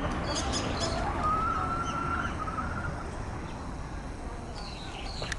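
Rooster crowing: one drawn-out call that starts about a second in and lasts about two seconds, over steady low background noise.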